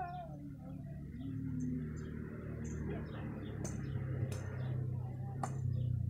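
Small birds chirping faintly, with a few sharp clicks, over a low steady hum; a kitten's mew trails off right at the start.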